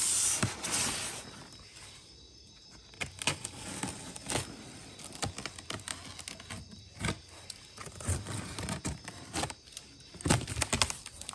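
Cardboard box being opened and its dried-grass packing handled by hand: a rustling, tearing hiss for about the first second and a half, then scattered rustles, scrapes and clicks.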